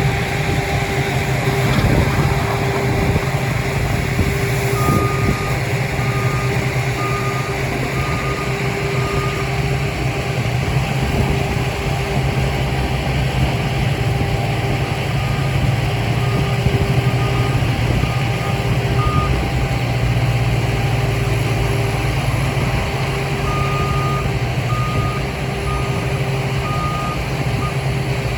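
Construction vehicle's reversing alarm beeping in three separate runs, over a steady heavy diesel engine hum from paving machinery.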